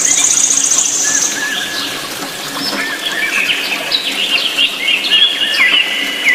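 Several birds chirping and calling over one another in short, quick notes, with a fast high trill in the first second or so.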